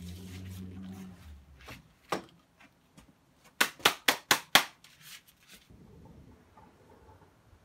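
A small belt sander's motor hums low and steady, then stops about a second in. Around the middle come five sharp knocks in quick succession, about four a second, followed by a faint background.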